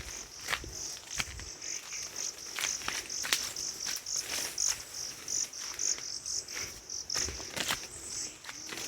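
Forest insect chirping in a high-pitched pulsed trill, about three pulses a second, with irregular crackling clicks and rustles mixed in.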